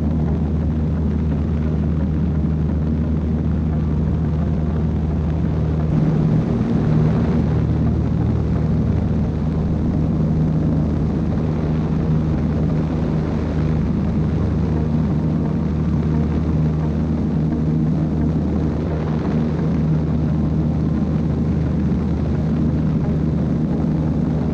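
Steady drone of the Aviat Husky's piston engine and propeller, heard from on board in flight, with airflow noise. The engine note shifts slightly about six seconds in.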